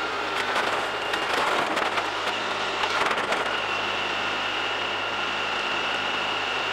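Compact diesel LS tractor running while its grapple tears into a mobile home, with metal and wood crackling and snapping over about the first three seconds. After that the engine carries on alone with a steady high whine.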